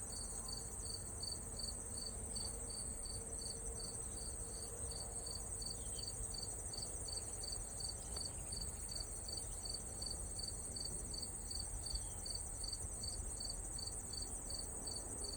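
Outdoor insect chorus: a steady high-pitched trill with a second insect chirping in an even rhythm about three times a second, the sound of crickets or similar singing insects.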